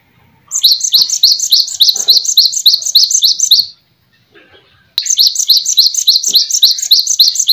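A small songbird calling in quick, evenly repeated high chirps, about five a second, in a bout of about three seconds; after a short pause a second bout starts about five seconds in.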